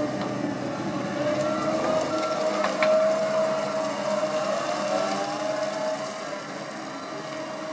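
Terex Fuchs MHL 250E wheeled material handler driving, its engine and hydraulics running with a steady whine that rises slightly about five seconds in. Faint short beeps repeat in the background, and there is a single sharp knock about three seconds in.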